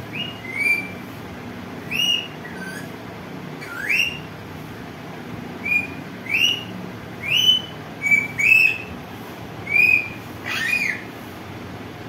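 Caged green Indian parakeet giving about a dozen short, high whistled calls at irregular intervals, many sweeping sharply upward in pitch, over a steady low hum.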